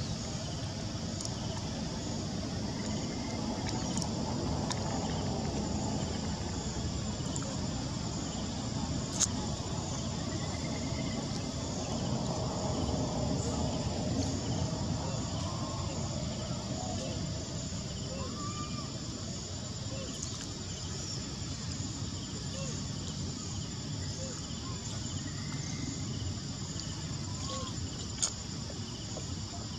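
Steady high drone of insects in the trees, with small scattered chirps and two sharp clicks, one about nine seconds in and one near the end.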